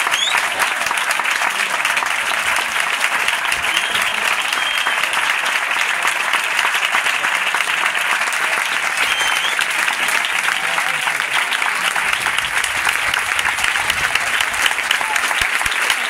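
Audience applauding, a dense, steady clapping that keeps up without a break, with some voices mixed in.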